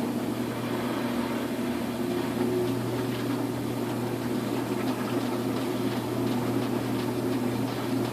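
Samsung front-loading washing machine loaded with duvets, running in its drain and spin cycle: a steady motor hum over an even rushing noise.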